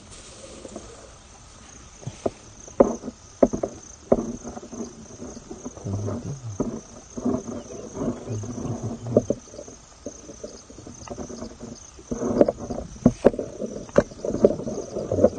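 Insects chirping steadily in a continuous high pulsing drone, over rustling of grass being handled and walked through, with a few sharp knocks about three to four seconds in. The rustling grows louder near the end.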